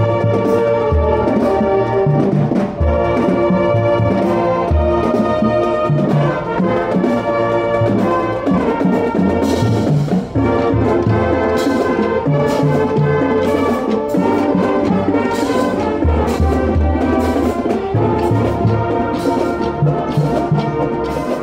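Marching band playing live: trumpets and sousaphones carry a brassy tune over a pulsing bass line. Sharp drum and cymbal hits come in from about nine seconds in.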